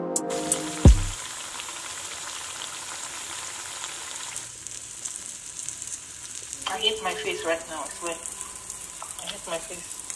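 Food sizzling as it fries in a pan: a steady hiss, with a single knock about a second in.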